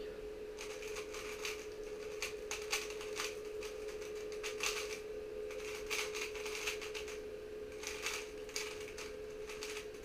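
Tengyun speedcube being turned by hand: irregular runs of quick plastic clicking and clattering as the layers are turned, with short pauses between runs. A steady faint hum sits underneath.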